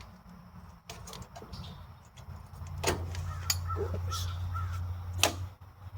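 Crows cawing several times in the background, with a few sharp metallic clinks from hand tools and a steady low hum through the middle.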